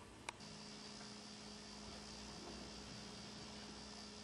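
A faint, steady electrical hum with a thin high hiss, starting just after a short click a fraction of a second in.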